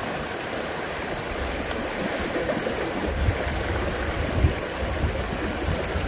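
Clear mountain stream flowing over rocks: a steady wash of running water.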